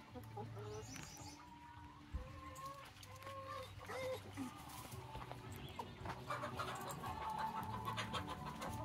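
A flock of Novogen brown laying hens clucking, with scattered short, gliding calls from several birds as they forage.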